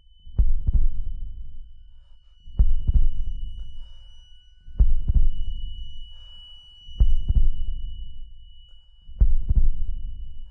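Slow heartbeat sound effect: five deep double thumps, one about every two seconds, each fading away, over a steady high ringing tone.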